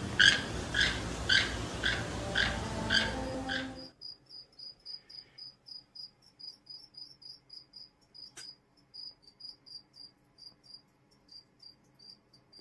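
Keel-billed toucan giving its croaking danger warning call over and over, about twice a second. After about four seconds it gives way to a faint, quick, high chirping, like a cricket, about four chirps a second, with one sharp click partway through.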